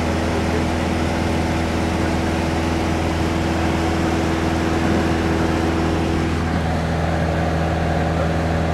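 Steady drone of a light touring aircraft's engine and propeller in cruise, heard inside the cabin. About two-thirds of the way through, some of its tones shift slightly in pitch.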